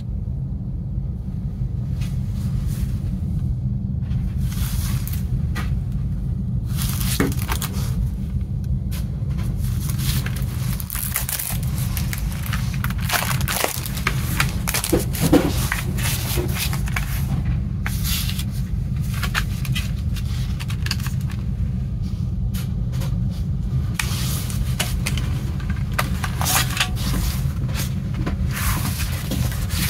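Cellophane shrink-wrap crinkling and tearing as it is peeled off a plastic CD jewel case, with scattered clicks and scrapes as the case is handled and opened, over a steady low hum.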